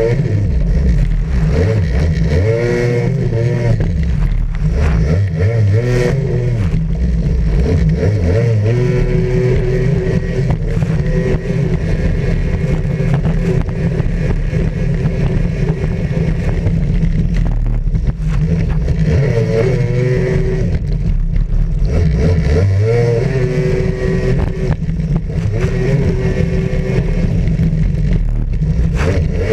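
Racing jet ski's engine heard from a camera mounted on the craft, running at high speed and revving up and dropping back again and again, with the rush of water spray.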